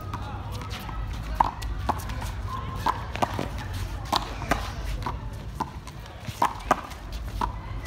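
Handball rally: a small rubber handball slapped by hand and smacking off the concrete wall and court, sharp irregular hits about two a second, along with players' footsteps.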